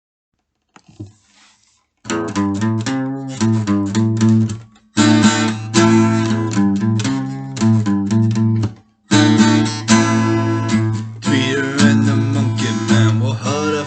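Instrumental song intro on strummed acoustic guitar. It comes in about two seconds in, after a faint brief sound, and plays in a steady rhythm with two short breaks, about five and nine seconds in.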